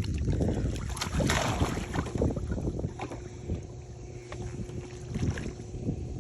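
Swimming-pool water splashing and sloshing as a person ducks under, busiest in the first couple of seconds and then settling, with wind buffeting the microphone.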